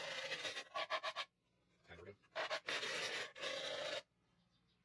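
A clear plastic cup rubbed by hand on a disc of sandpaper: a rasping scrape in two spells of about a second and a half, with a pause between. The plastic is being roughed up so epoxy will adhere.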